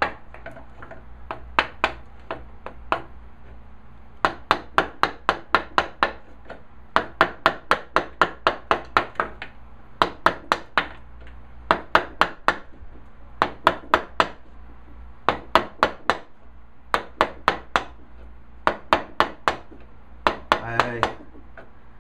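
Mallet striking a chisel to chop out a dado in a walnut board, a little at a time. It sounds as runs of quick, sharp knocks, about four or five a second, with brief pauses between runs.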